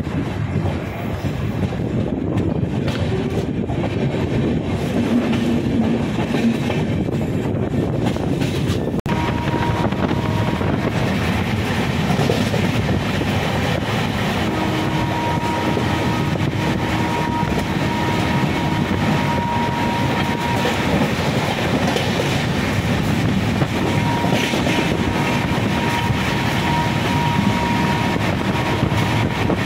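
Mewar Express passenger train running along the track: a steady rumble and rattle of the coaches with wheels clattering over the rails. The noise shifts abruptly about nine seconds in.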